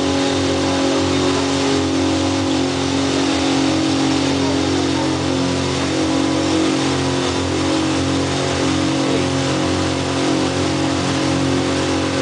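Tow boat's engine running steadily at towing speed, with water rushing and wind noise over it.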